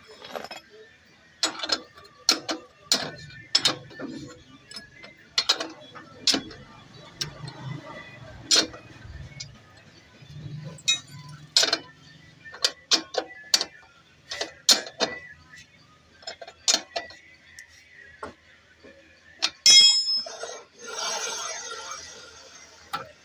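Irregular metallic clicks and clinks of hand tools working on motorcycle brake and wheel parts during reassembly, with a louder clatter and a short stretch of hissing noise near the end.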